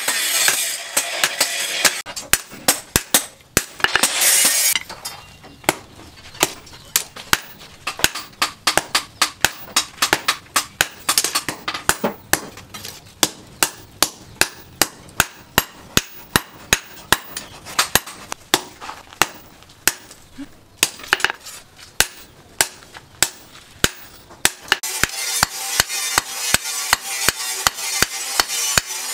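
Hand hammer striking a red-hot steel knife blank on a cylindrical steel anvil, forging it out, with sharp blows at about two to three a second. A steady hiss is heard at the start and again near the end.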